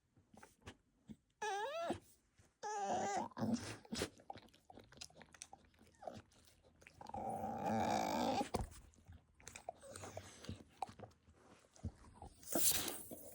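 A puppy vocalising: two short wavering whines in the first few seconds, then a longer rough grunting growl, with scattered small clicks and snuffles between.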